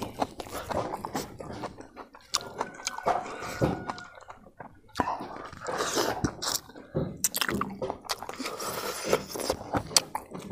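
Close-miked eating: wet chewing of a mouthful of rice, with a run of sharp lip smacks and mouth clicks.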